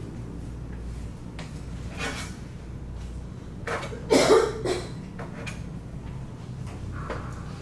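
A bench scraper cutting through rolled dough onto a wooden pastry board, with one loud scraping knock about four seconds in and a lighter one about two seconds in.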